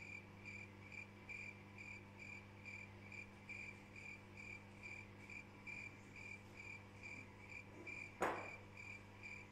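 Cricket-chirp sound effect, evenly repeating about twice a second, the stock cue for an awkward silence, over a low steady hum. A single sharp knock near the end.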